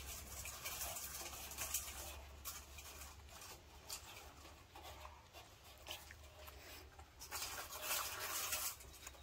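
Faint scratching and rustling of a baby macaque's hands and feet gripping and climbing a wooden post, with a few small clicks. The rustling grows louder near the end.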